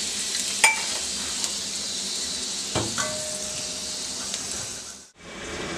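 Dried red chillies frying in hot refined oil in a steel kadhai: a steady sizzling hiss with a few sharp clicks. The sizzle drops out briefly about five seconds in.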